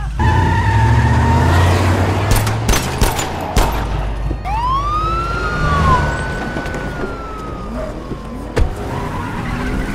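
Deep car-engine rumble with several sharp bangs in the first few seconds. Then, about four and a half seconds in, a police siren rises in one wail and slowly winds down.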